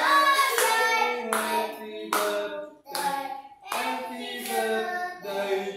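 A group singing a birthday song in held, stepping notes, with hands clapping along.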